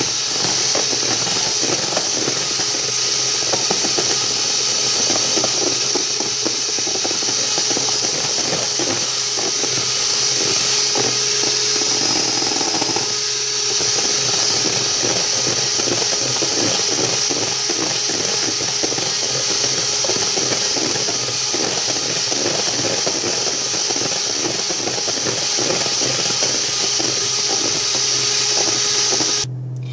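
Electric hand mixer running steadily, its twin beaters whipping heavy cream in a bowl as it thickens towards soft peaks. The motor cuts off near the end.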